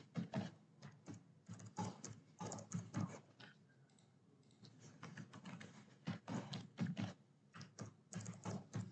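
Typing on a computer keyboard: irregular runs of faint key clicks, with a pause of about a second near the middle.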